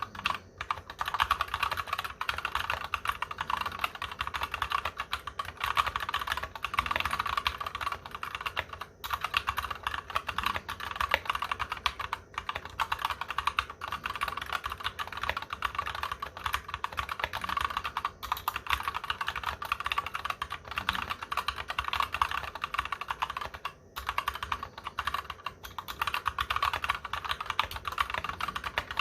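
Fast continuous typing on a mechanical keyboard with Gateron Clear linear switches (35 g), a rapid stream of key clacks with only a few brief pauses. The keyboard sits on large mouse mats, which damps the bottoming-out.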